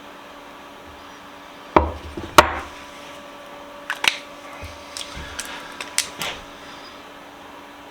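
Hard objects knocked and set down on a workbench while vise parts are handled: two sharp knocks about two seconds in, then a run of lighter clicks and clacks a couple of seconds later, over a steady hum.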